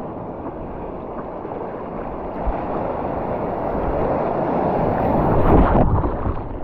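Ocean water rushing and splashing with wind buffeting the microphone. It builds to its loudest about five and a half seconds in, then drops off suddenly.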